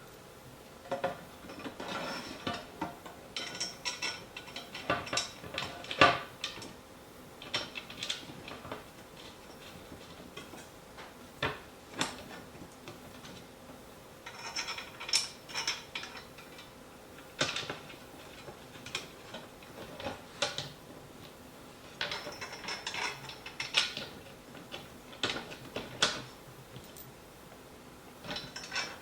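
Bolts being driven by hand into a flat-pack table's shelf: irregular metallic clicks and rattles in spells of a few seconds, some with quick runs of ratchet-like ticks.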